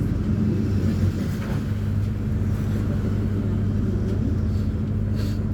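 Agrale MA 10.0 bus chassis' diesel engine running at a steady speed, a constant low drone with no revving, heard from inside the bus.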